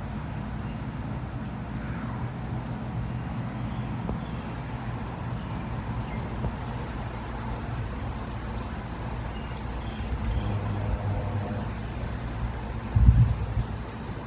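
Steady low rumble of a running motor vehicle, with a brief louder thump near the end.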